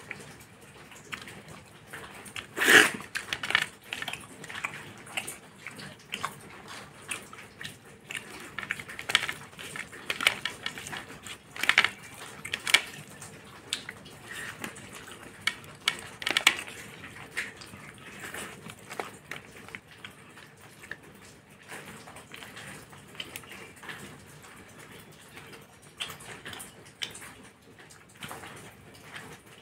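A person eating fish by hand: irregular wet chewing and mouth clicks close to the microphone, with small clinks of a plate, and one louder clack about three seconds in.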